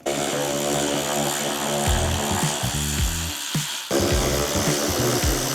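Background music with a bass line that changes note every couple of seconds.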